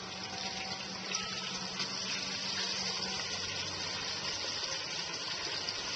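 Floured chicken legs and thighs frying in about a half inch of hot oil in a cast iron Dutch oven: a steady sizzle.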